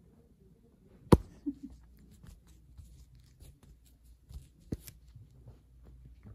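Rustling and scuffling of a quilted bedspread as a Savannah cat pounces on and bats at a furry toy tail, with two sharp taps, the louder one about a second in and another a few seconds later.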